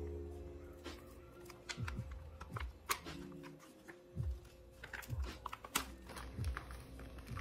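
Background music with held bass notes and a slow beat, with scattered light clicks and taps over it.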